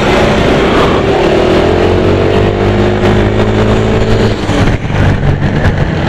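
Wind rushing over a helmet-mounted action camera's external microphone with the helmet visor open, over a motorcycle engine running. The engine pitch rises gently from about a second in, as the bike accelerates, and eases off near the end.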